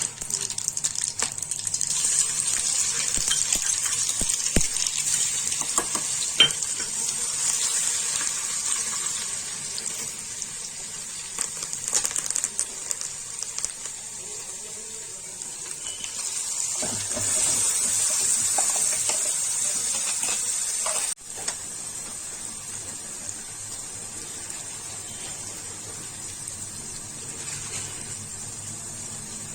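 Food sizzling in a pan, with short clinks of a spoon or ladle against the pan. The sizzling drops off abruptly about two-thirds of the way through and carries on more quietly.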